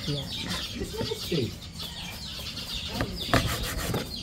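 Cleaver chopping grilled pork belly on a wooden cutting board: a few sharp knocks of the blade through the meat into the board, with birds calling in the background.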